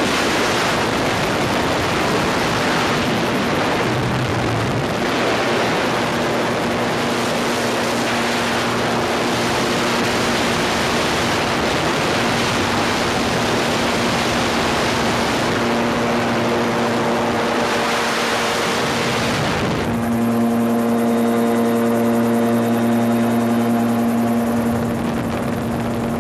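Gyrocopter in flight heard from the cockpit: the engine and propeller run at a steady pitch under heavy wind rush on the microphone. About twenty seconds in, the wind noise drops and the engine's steady hum comes through clearly.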